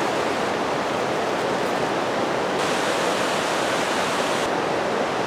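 Steady rushing of creek water, an even hiss with no break, a little brighter for about two seconds in the middle.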